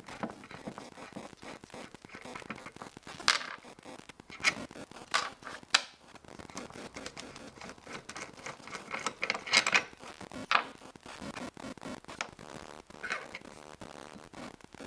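Irregular scraping and clicking handling noises, with a few sharper scrapes, as the steering-head bearings are regreased by hand.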